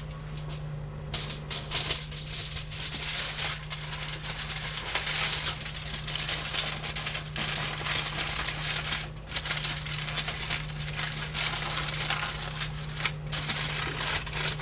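Aluminium foil crinkling and rustling as it is folded and wrapped by hand, in a long run of crackles with a couple of brief pauses.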